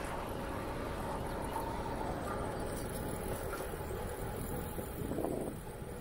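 Steady wind buffeting and rolling noise from a bicycle ridden along an asphalt bike path, with a short louder rasp about five seconds in as the bike slows.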